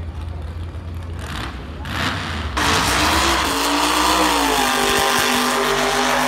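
Drag race car engine at full throttle, cutting in suddenly about two and a half seconds in over a low rumble of idling engines, very loud, its pitch climbing and then dropping as the car runs down the track.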